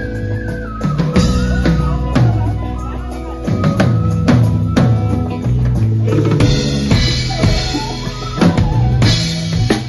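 Live fusion band playing during a sound check: a drum kit keeps a beat of kick, snare and rimshots under a flute melody that slides between held notes, with low sustained notes beneath.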